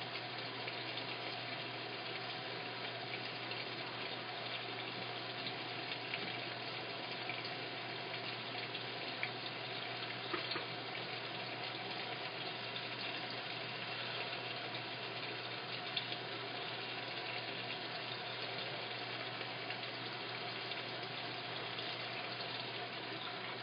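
Washing machine filling: a steady rush of water flowing in, with a low steady hum beneath it.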